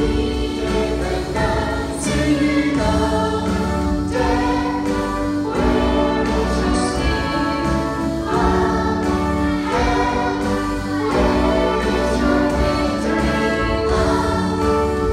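Children's choir singing a Christian Easter song, accompanied by a small instrumental ensemble.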